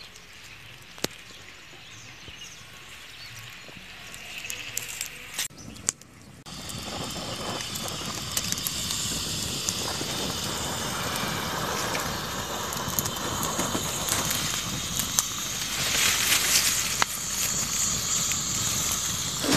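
Open fire of twigs and sticks burning under a banana-stem parcel, crackling with many small sharp pops. The first six seconds hold only faint outdoor background; after a short break the fire is much louder and crackles on steadily.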